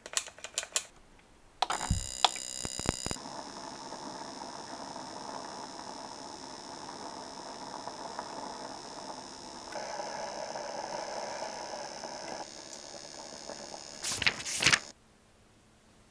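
A few light pats of hands on skin, then a facial steamer running: a steady hiss of steam that starts about two seconds in. A few louder bursts come near the end before the sound cuts off.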